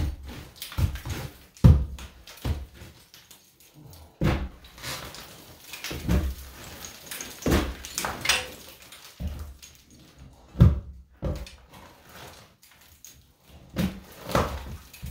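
Hammer blows chipping stucco off a wall: irregular sharp knocks and crunches, several a few seconds apart, with the loudest near the start and in the middle.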